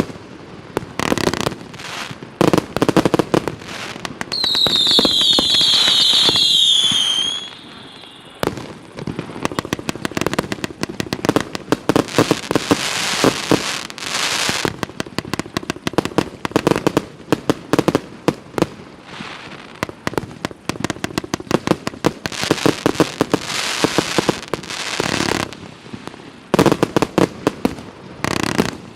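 FP-B116 'Winter Evening' consumer firework going off: rapid runs of sharp pops and crackles throughout, with dense crackling stretches. About five seconds in, several whistles sound together, each falling in pitch, lasting about three seconds.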